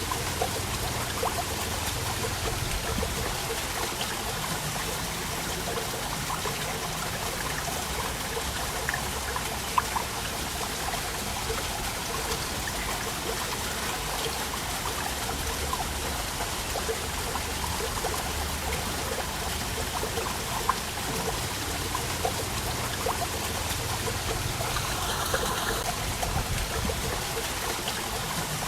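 Waterfall: a steady, even rush of falling water with trickling and splashing over it.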